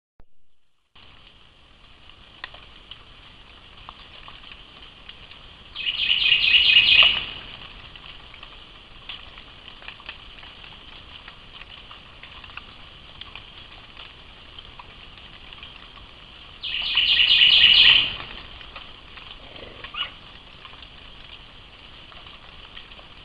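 A steady high buzz of night insects, with two loud rattling calls about eleven seconds apart, each lasting about a second.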